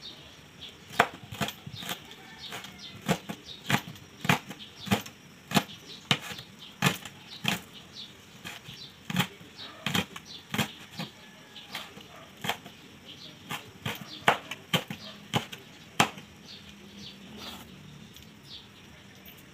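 Chef's knife chopping red chili peppers on a plastic cutting board: a run of sharp, uneven knocks, about three a second.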